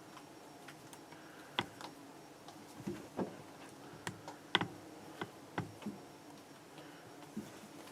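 Scattered light clicks and crackles at an irregular pace, about a dozen, bunched in the middle, over a faint steady hiss.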